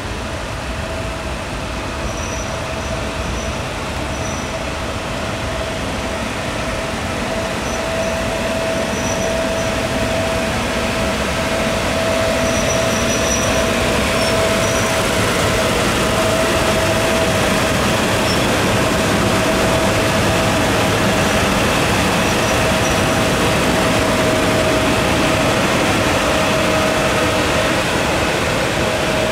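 SBB Be 6/8 'Crocodile' electric locomotive rolling slowly past with a steady electrical hum over a running rumble, growing louder over the first dozen seconds as it draws near.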